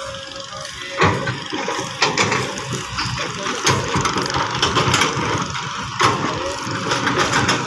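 Kobelco hydraulic crawler excavator's diesel engine running steadily while the bucket digs through soil and tree roots, with sharp cracks and knocks a few times, about a second in, two seconds in and again around six seconds.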